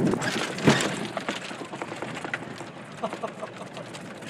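A small vehicle rolling slowly over a rough dirt path, crackling and rattling, with one sharp knock about two-thirds of a second in and scattered small clicks after it.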